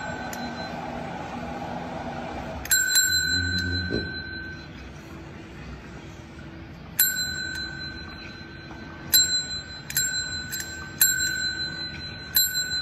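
Chrome service bell (desk call bell) struck about six times, each a bright ding that rings on briefly; the dings come closer together in the second half.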